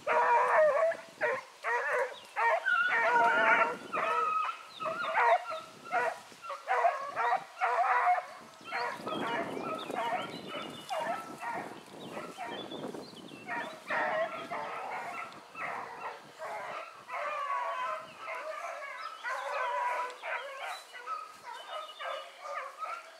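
A pack of hounds baying and barking together, many voices overlapping. The calling eases off about halfway, then picks up again.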